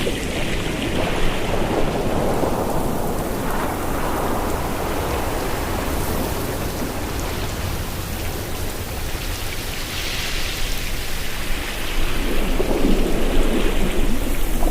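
Ocean surf washing in with wind blowing across the microphone, a continuous rushing noise with low rumble that swells and eases slowly and builds again near the end.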